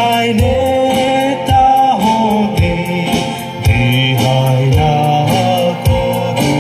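A live band playing a song: male voices singing over acoustic guitar and electric keyboards, with a steady beat.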